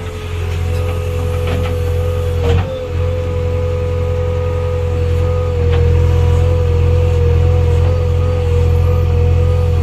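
JCB 3DX backhoe loader's diesel engine running under load, heard from inside the cab, with a steady whine and a few knocks as the backhoe arm swings and the bucket digs. The engine gets louder about six seconds in.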